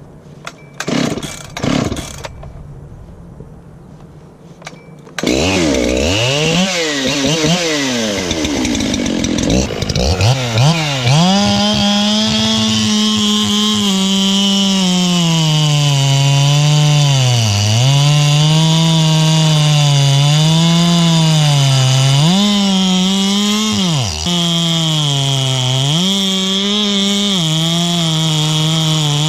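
Modified Makita/Dolmar 7900 79cc two-stroke chainsaw pull-started with a few yanks, catching about five seconds in and revving up and down. It then runs at high speed as the chain cuts into the base of a dense, dead red gum eucalyptus trunk, the engine pitch sagging and recovering again and again under the load of the hard wood.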